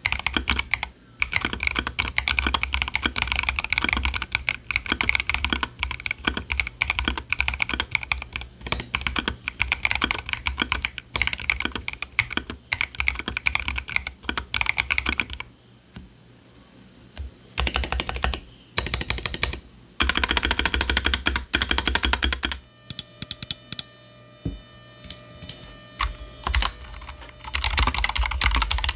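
Typing on a Keychron Q1 V2 mechanical keyboard with Wuque WS Quartz linear switches, tape-modded, under PBT keycaps: fast continuous keystrokes, a pause of about two seconds, then short bursts. About 23 s in it gives way to a Razer BlackWidow V3 Mini Hyperspeed with stock yellow linear switches and ABS keycaps: a few scattered keystrokes over faint steady tones, then continuous typing near the end.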